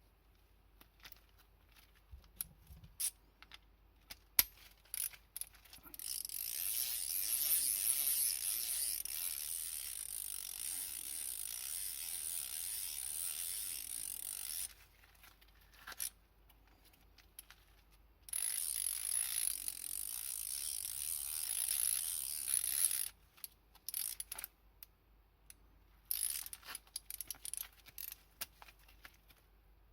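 A fine-toothed 3/8-inch-drive ratchet adapter clicking as it is worked. It starts with scattered single clicks, then gives two long runs of rapid, dense clicking as it is spun fast, about six seconds in and again about eighteen seconds in, and ends with scattered clicks.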